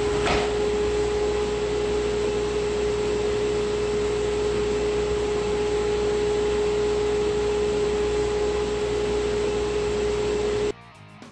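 A Harbor Freight 2 hp dust collector fitted with a 12-inch Rikon rear-vaned impeller, running at full speed and pulling air through a router table's dust port: a steady rush of air with a strong steady whine. The sound cuts off abruptly near the end.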